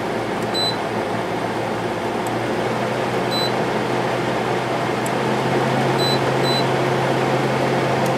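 Soleus Air through-the-wall air conditioner running with its compressor on: a steady rush of fan air over a low hum that grows stronger about three seconds in. Four brief, faint high beeps come through along the way.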